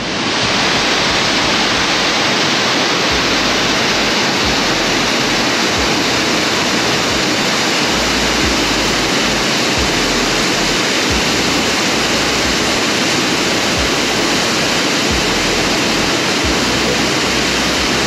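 Waterfall and rushing creek water in a narrow canyon, a loud, steady wash of falling water.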